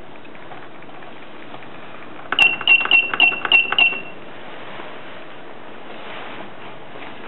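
Carousel automatic tape dispenser beeping: six short, high beeps of one pitch in quick succession, each with a click, about two and a half seconds in.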